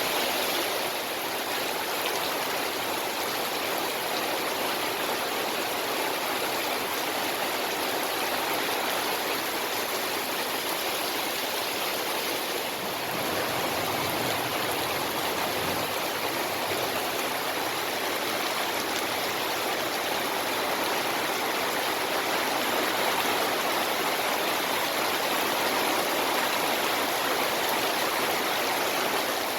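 Heavy tropical downpour: a steady, dense hiss of rain.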